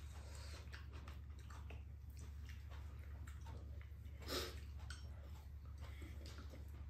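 Two people eating curry with chopsticks at close range: quiet chewing with faint clicks of chopsticks against bowls over a steady low hum, and one louder short mouth sound about four seconds in.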